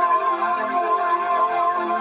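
A chord sound effect: several electronic tones sound together, one high note held steady while the lower notes shift.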